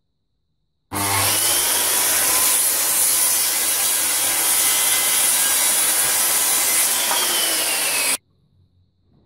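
Handheld circular saw running and crosscutting through a recycled wooden floorboard, a loud, steady cutting noise that starts about a second in and cuts off suddenly near the end.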